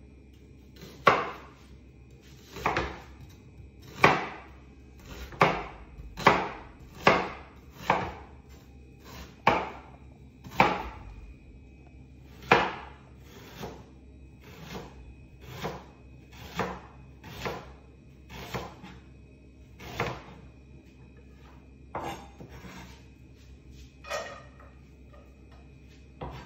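Kitchen knife chopping an onion on a plastic cutting board: single knocks about once a second, harder through the first half and lighter and quicker later.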